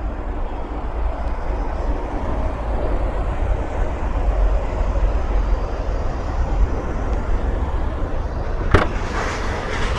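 Steady low rumble and hiss of outdoor background noise. Just before the end comes one sharp click: the tailgate latch of a Mercedes-Benz A-Class releasing as the boot is opened.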